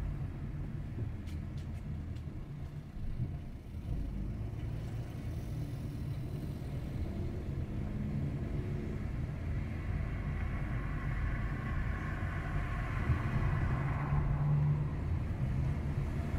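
A car driving along a street: steady low engine and road rumble, growing a little louder over the last few seconds.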